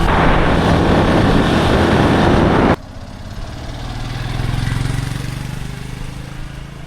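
Motorcycle riding on the road, its engine hum buried in loud wind rush; about three seconds in, the sound cuts abruptly to a quieter low engine hum that swells and then fades.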